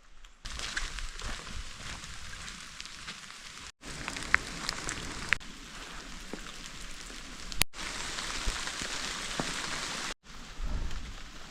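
Steady rain falling, a dense hiss with a few sharper single drops. It breaks off abruptly three times and resumes at once, where separate recordings are cut together.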